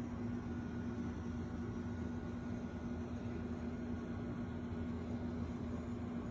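A steady low machine hum with an unchanging tone, like a running appliance in a small room.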